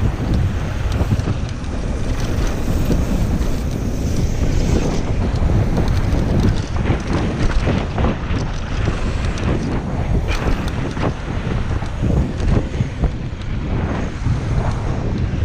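Wind buffeting the microphone at speed over the rumble of mountain-bike tyres on a dirt and gravel trail. Frequent clatters and knocks come from the bike rattling over bumps.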